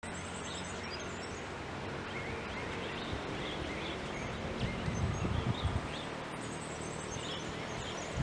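Flock of finch-billed mynas calling: many short, high chirps and squeaks overlapping, over a low rumble that swells briefly about halfway through.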